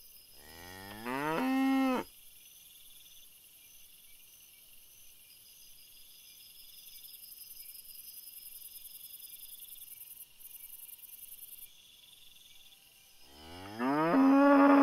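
A cow mooing twice: one long moo starting about half a second in and another near the end, each rising in pitch and then held. Crickets chirp steadily between the moos.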